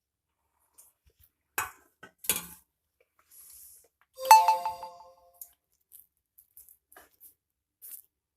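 Kitchen dishes and utensils knocking together: a few light knocks, then a single sharp clink about four seconds in that rings briefly.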